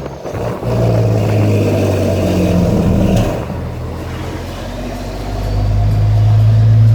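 Volvo FH 380 truck's diesel engine running, loud. It drops back somewhat around the middle and builds up again near the end.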